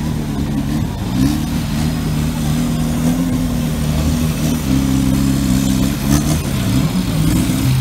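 Off-road trial buggy's engine revving up and down under load as it crawls over rocks, its pitch rising and falling several times.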